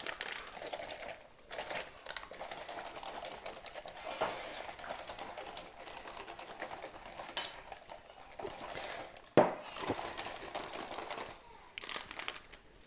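Sealed plastic drink pouch holding water and lemon energy-drink powder being shaken to mix, the plastic crinkling and rustling with scattered clicks and one sharp knock about nine seconds in.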